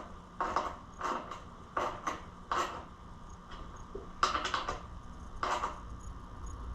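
Irregular light metal clinks and knocks of hand tools and a bolt as a motorcycle exhaust is bolted back on, with a quick run of several clicks about four seconds in.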